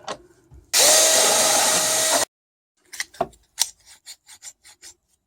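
A drill turning a die grinder bit grinds down pop rivet heads for about a second and a half, a loud rasp over a steady motor whine that cuts off abruptly. Then comes a run of light, evenly spaced clicks.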